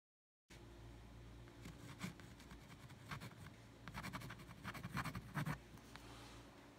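Faint scratching of a fine-tip pen on textured watercolor paper as a name is signed, in short clusters of strokes starting about half a second in, over a low steady hum.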